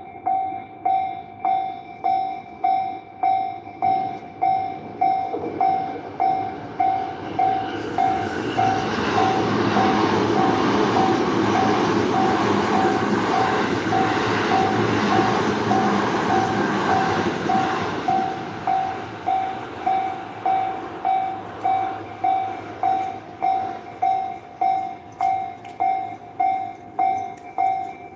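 Japanese railroad crossing warning bell ringing steadily, about one and a half rings a second. A train passes over the crossing from about 8 s to 18 s, its running noise rising and falling over the bell.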